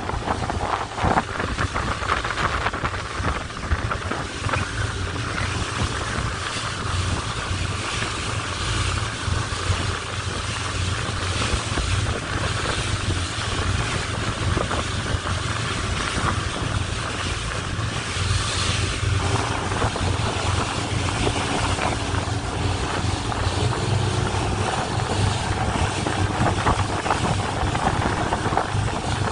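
Motor boat underway, its Evinrude outboard engines droning steadily under wind noise on the microphone and the rush of water past the hull.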